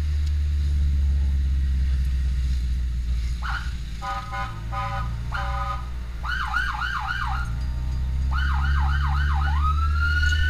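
Emergency vehicle's electronic siren switching through its tones: three short stepped beeps about four seconds in, then two quick runs of rising-and-falling yelps, then a long wail that rises and holds near the end. Underneath, the vehicle's engine keeps up a steady low rumble inside the cab.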